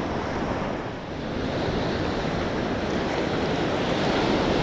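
Surf washing onto a sandy beach, a steady rush of breaking waves with wind on the microphone; the rush dips briefly about a second in, then builds louder.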